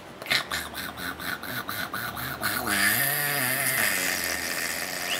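Three-month-old baby vocalizing: a quick run of rhythmic breathy sounds, about four a second, then a longer coo with wavering pitch about three seconds in.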